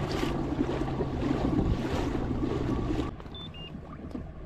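Kayak running through choppy water: wind buffeting the microphone and water splashing at the hull, with a steady hum underneath. About three seconds in this cuts to quieter water lapping, with two short high beeps.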